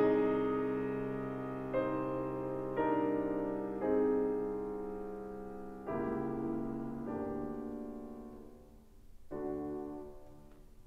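Solo piano playing a slow, quiet passage: a loud chord dies away, then soft chords are struck about every one to two seconds and left to ring and fade, growing quieter toward the end.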